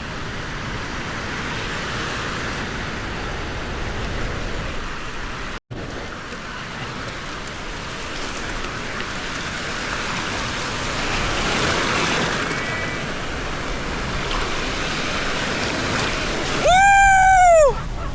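Surf washing on the beach with wind on the microphone, a steady noisy hiss. Near the end a loud, high call lasting about a second rises slightly and then falls.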